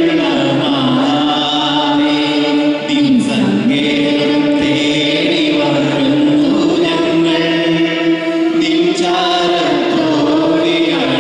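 A group of voices singing a Knanaya Catholic liturgical chant together, the melody held in long notes that slide slowly from pitch to pitch.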